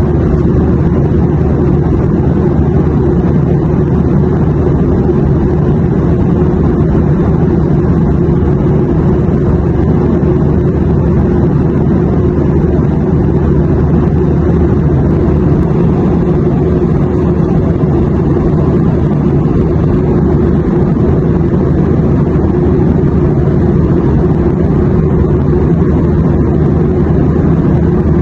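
Airplane noise used as sleep white noise: a steady, even low rumble with a softer hiss above it. Nothing changes through the stretch.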